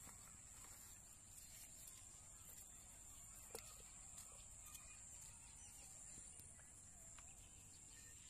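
Near silence: faint field ambience with a steady high-pitched insect drone, and one faint click about halfway through.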